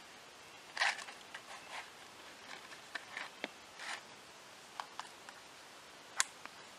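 Faint rustling and crinkling with scattered small clicks and taps: hands handling tinder and kindling while laying a campfire. A single sharp click stands out about six seconds in.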